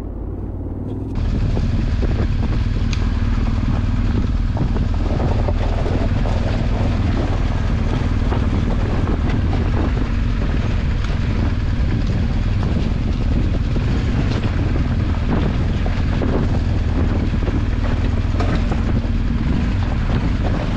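Large twin-cylinder adventure motorcycle running at low revs as it rolls down a loose rocky gravel track, heard from on the bike. Its tyres crunch over the stones with frequent small knocks and rattles. The sound grows fuller and louder about a second in.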